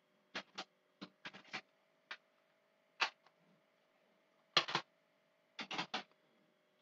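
Scattered short clicks and taps from hands working at a desk, some single and some in quick clusters of two to four, over a faint steady electrical hum.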